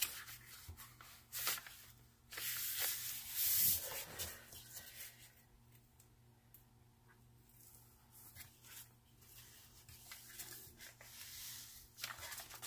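The protective cover sheet of a diamond painting canvas being smoothed by hand and peeled back off the sticky adhesive: rustling and crinkling of the sheet in bursts, loudest between about two and four seconds in.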